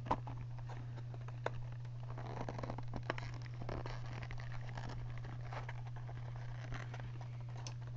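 Faint rustling with scattered light clicks and taps as a Yo-Yo Factory Protostar's cardboard box with its plastic window is handled and worked open, over a steady low electrical hum.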